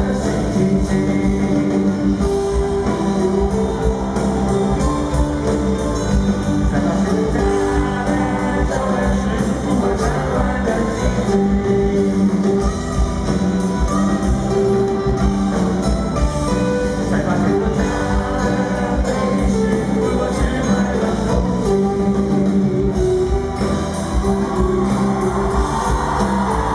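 Rock-style music with guitar and singing.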